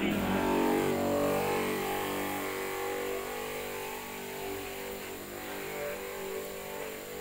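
Electric knapsack sprayer's pump motor humming steadily while disinfectant is misted from the wand, loudest in the first couple of seconds.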